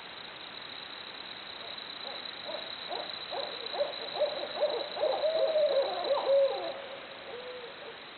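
Barred owls hooting: a run of quick hoots that builds into louder, gliding calls about halfway through, ending on one drawn-out note, over a steady hiss.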